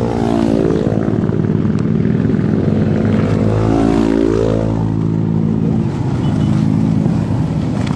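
Motor vehicle engines running on the road, probably motorcycles: a steady engine rumble whose pitch falls in the first half-second and rises and falls again around the middle as an engine revs or passes by.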